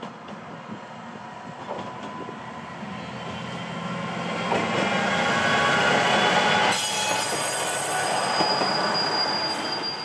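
A single-car diesel railcar approaching and passing close by, its engine and wheels on the rails growing steadily louder and loudest in the second half. A high, steady wheel squeal joins in the last few seconds as it goes past.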